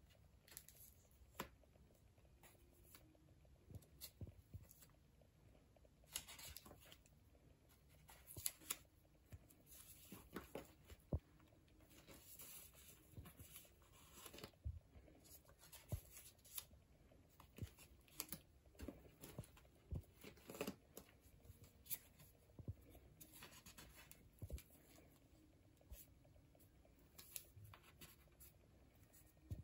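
Pages of a thick collaged scrapbook journal being turned by hand: quiet paper rustling with many short, scattered crackles as stiff, glued-on pages flip over.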